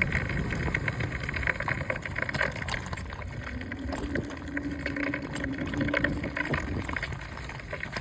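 A vehicle's front wheel rattling in quick, irregular clicks while driving, over a low road and wind rumble that eases off near the end.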